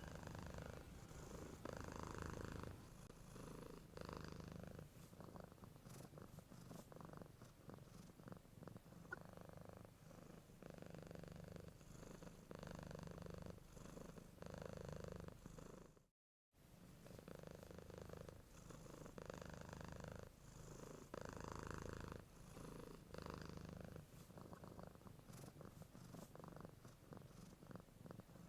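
A cat snoring faintly in its sleep, each breath a soft swell about two seconds apart. The sound cuts out completely for a moment about halfway through.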